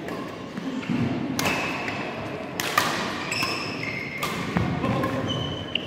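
Badminton rally: rackets hitting the shuttlecock in sharp cracks about a second apart, with short high squeaks of court shoes on the hall floor and footfall thuds between the hits.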